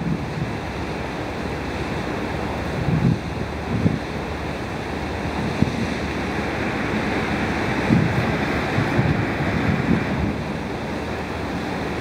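Wind blowing on the microphone: a steady rushing noise, with irregular low buffets a few times.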